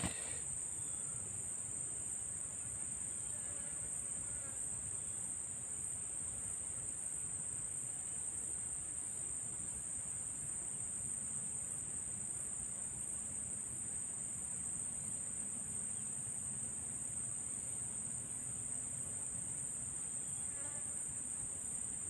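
Steady high-pitched insect chorus, unbroken and even in level.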